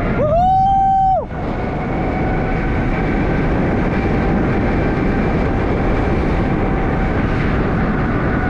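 Wind rushing over the microphone with road noise while riding a bicycle, a loud, steady noise. A faint steady tone runs under it, and in the first second a loud held high tone rises in and falls away.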